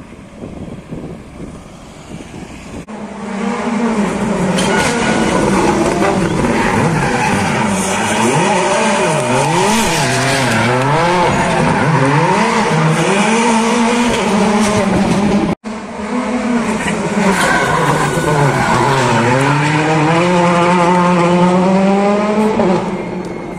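Citroën C3 WRC rally car's turbocharged four-cylinder engine revving hard as it drives through the turns of the course. Its pitch repeatedly falls and climbs as it slows and accelerates. It comes in loud about three seconds in and runs on until near the end, with a brief dropout a little past the middle.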